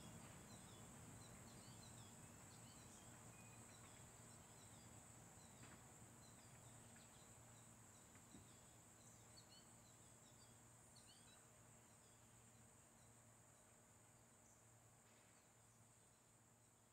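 Faint outdoor ambience fading out: a steady high insect buzz, small birds chirping now and then, and a low steady hum underneath.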